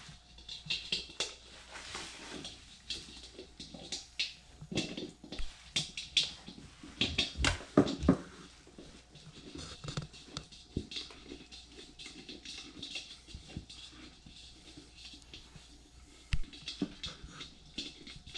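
Handling noise from assembling a George Foreman grill by hand: plastic wrap crinkling and rustling, with irregular clicks, scrapes and knocks of the grill's parts, loudest about 7 to 8 seconds in.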